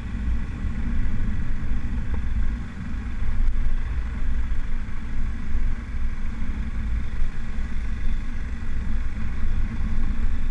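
Motorcycle engine running steadily as the bike is ridden along a street, with a heavy low rumble throughout.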